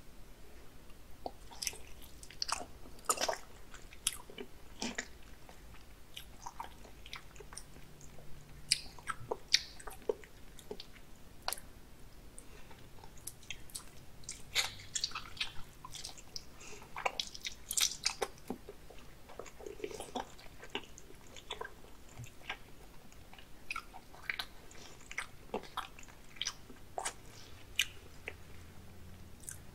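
Close-miked mouth sounds of someone biting and chewing raw salmon sashimi: many short, irregular clicks and smacks.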